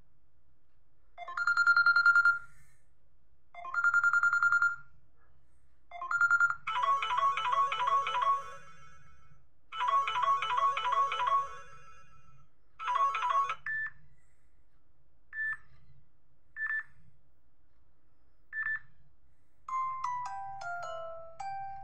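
Samsung Galaxy J2 Prime's speaker playing a series of its stock ringtones one after another, each cut short. First come two short trilling rings, then a busier electronic chirping tune, then four single short beeps. Near the end a falling run of bell-like notes starts.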